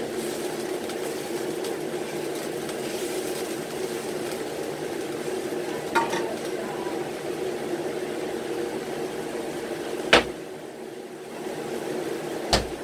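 Steady low hum of kitchen cooking noise, with household objects being handled: a light clatter about six seconds in, a sharp knock about ten seconds in, and another knock near the end as the refrigerator is opened.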